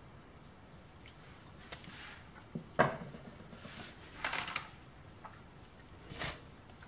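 Scattered kitchen handling noises as a silicone spatula works over a parchment-lined baking tray: a sharp knock nearly three seconds in, then short rustling scrapes a little after four seconds and again about six seconds in.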